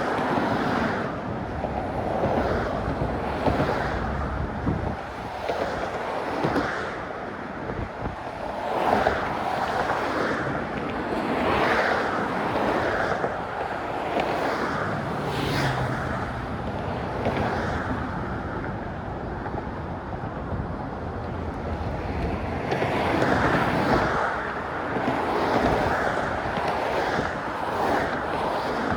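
Wind gusting over a phone microphone muffled with a sock, rising and falling, over the steady noise of traffic on the bridge.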